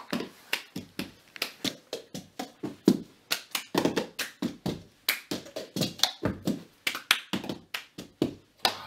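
Hands clapping and cups tapped and knocked on the floor in a quick, steady rhythm: the cup game, several players keeping the beat together.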